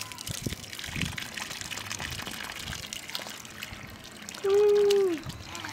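Water running from a garden hose and splashing into a muddy puddle on dirt ground. Near the end a high voice calls out once, held for under a second and dropping in pitch as it stops.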